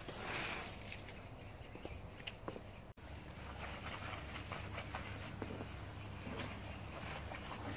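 Soap foam fizzing in a soaked wool shag rug: a dense run of tiny crackles and pops over a steady low hum, with a short scrubbing swish at the start.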